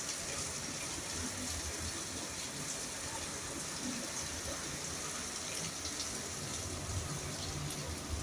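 Heavy rain falling, a steady even hiss, with a few low rumbles near the end.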